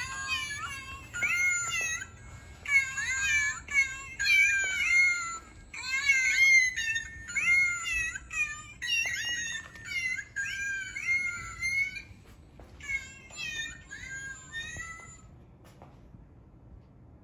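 Musical birthday card playing a song of cat meows: a run of high, bending notes in rhythmic phrases that stops about fifteen seconds in.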